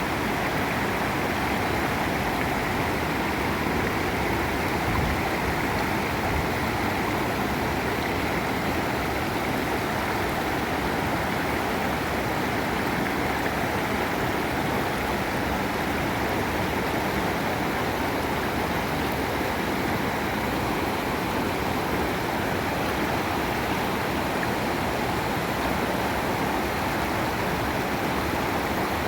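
Waterfall: water falling and rushing in a steady, unbroken stream of noise.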